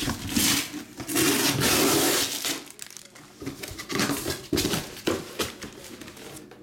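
Cardboard card boxes and their plastic wrapping being handled: bursts of rustling and crinkling with a few light knocks, the longest stretch about a second in.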